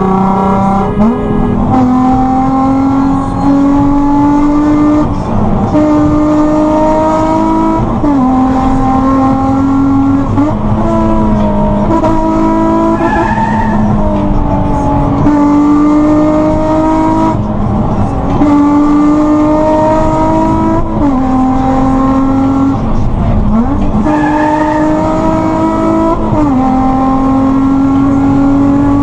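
Racing car engine revving hard: its pitch climbs through each gear and drops sharply at every shift, about every two to three seconds.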